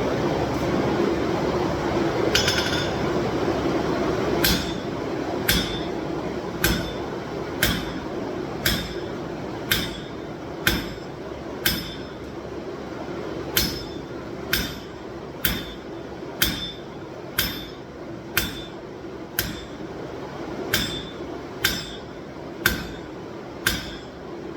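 Hammer blows on hot steel cable against an anvil while the knife's tang is forged to shape: sharp, ringing strikes at about one a second, with one short pause. A steady rushing noise runs underneath.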